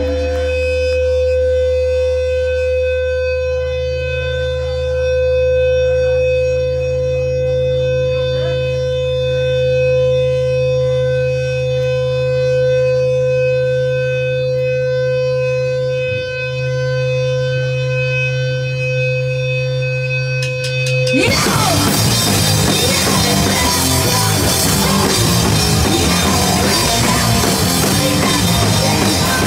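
Live rock band with amplified electric guitars. First comes a steady held guitar drone with a ringing feedback tone and low sustained notes. About twenty seconds in, the full band crashes in loud all at once, distorted guitars and drums together.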